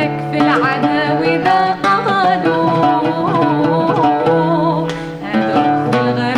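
A woman singing to oud accompaniment: a run of plucked oud notes under her voice, which holds a long, ornamented wavering note in the middle.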